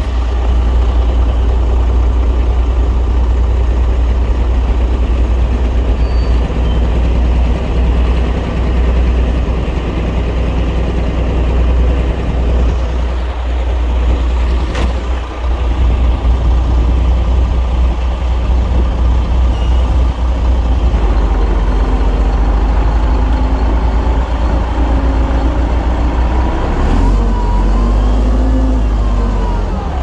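Heavy diesel earthmoving machinery running steadily under load, with a deep engine drone and a few rising and falling tones near the end.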